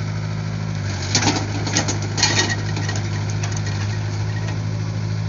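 Excavator's engine running steadily at a constant pitch, with a few short harsh bursts of noise about a second in and again around two seconds in.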